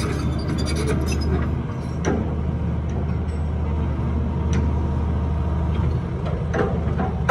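Doosan 300LC excavator's diesel engine running at a steady pitch while the boom and arm are worked, with a couple of short knocks about two seconds and four and a half seconds in.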